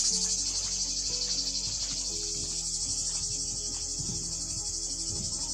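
Cicadas buzzing in a continuous high-pitched chorus, with soft background music underneath.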